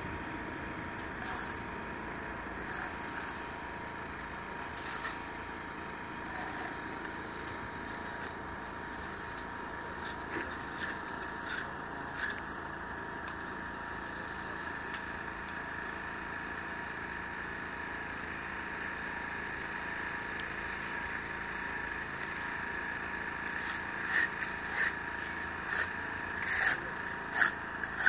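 A small engine or motor running steadily on a building site, with scattered sharp taps and knocks from work on the concrete-block walls, coming thicker near the end.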